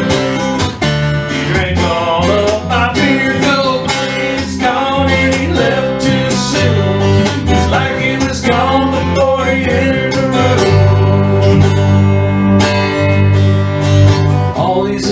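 Instrumental passage of a country-style song: acoustic guitar strumming in a steady rhythm over sustained low notes.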